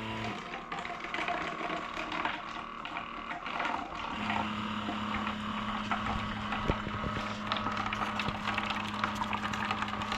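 Coffee maker's water pump humming, cutting out at the start and starting again about four seconds in as the handle is held down, over a steady crackle of heating and spitting water. The pump only runs while the handle is pressed, which the owner puts down to a faulty handle safety switch.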